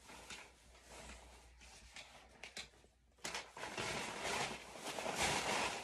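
Rustling and handling noises of things being moved about. Quieter for the first three seconds, then louder after a brief pause.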